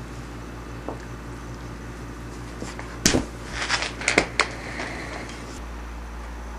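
Scuffling of a golden retriever and a kitten wrestling on a wooden floor: a sharp knock about three seconds in, then a quick run of scrapes and thumps, over a steady low hum.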